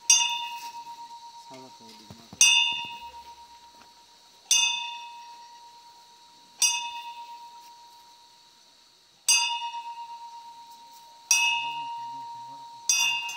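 A hanging metal temple bell struck seven times, about once every two seconds. Each strike rings out with a clear tone that wavers as it fades.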